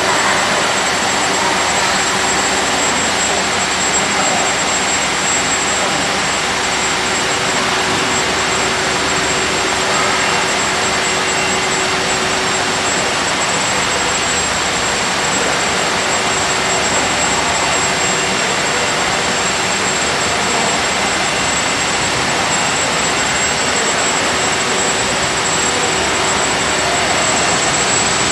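Industrial machinery running steadily: a loud, even rushing noise with a thin high whine over it, unchanging throughout.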